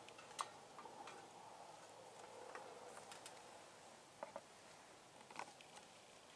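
Near silence with about ten faint, sharp ticks and crackles scattered at irregular intervals, the strongest about half a second in and a close pair near the four-second mark.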